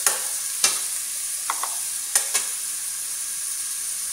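Chopped onion, garlic and green pepper sizzling in oil in a stainless steel pot, with a metal spoon clinking and scraping against the pot as it is stirred. The stirring stops about two and a half seconds in, leaving a steady sizzle.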